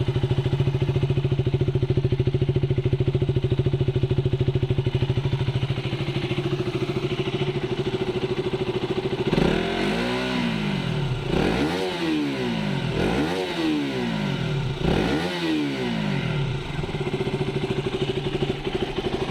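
KTM RC 200's single-cylinder engine idling steadily. About halfway through it is revved four times in a row, each rev rising and falling in pitch, then it settles back to idle.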